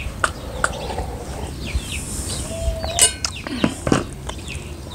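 Eating at a table: scattered mouth and hand clicks, with a metal brass bowl set down with a sharp ringing clink about three seconds in. Birds chirp faintly in the background.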